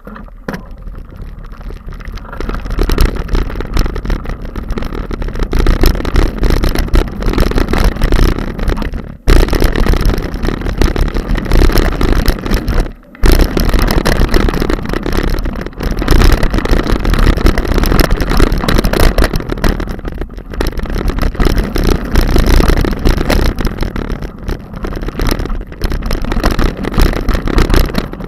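Wind buffeting the camera microphone on a descending mountain bike, mixed with tyres crunching and rattling over loose slate gravel. The noise is loud and continuous, with a heavy low rumble, and drops out sharply twice.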